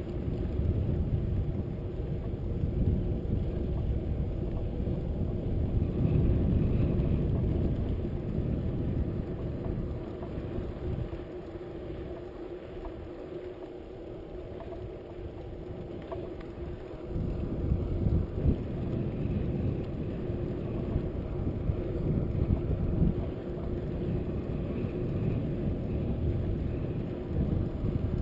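Wind buffeting a bike-mounted camera's microphone with tyre rumble on rough asphalt as the bicycle rolls along. It eases for several seconds in the middle while the ride slows through a junction, then comes back suddenly.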